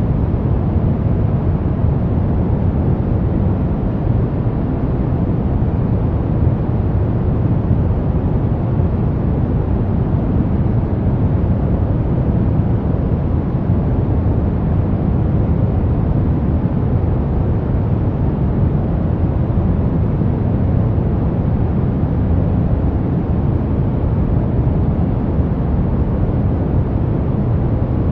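Brown noise: a steady, deep rumbling hiss, strongest in the low end and fading toward the top, with no changes or events.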